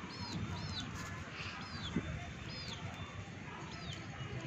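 Small birds peeping: short, high chirps that rise and fall, repeated every half second to a second over a steady low rumble, with a brief thump about two seconds in.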